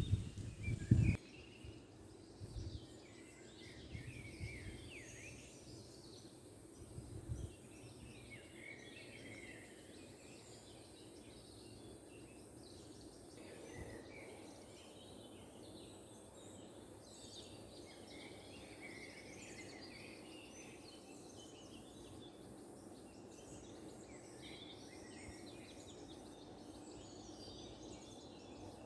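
Small birds chirping and singing, many short calls overlapping, over a faint steady murmur of running water. A few low thumps come in the first seconds, the loudest about a second in.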